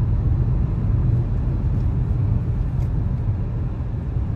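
Steady low rumble of a car on the move, road and engine noise heard from inside the cabin, easing slightly near the end.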